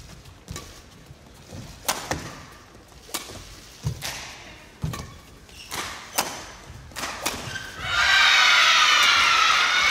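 Badminton rally: sharp racket strikes on the shuttlecock about once a second, with low thuds of the players' footwork on the court. About eight seconds in the rally ends and a large crowd breaks into loud cheering and applause.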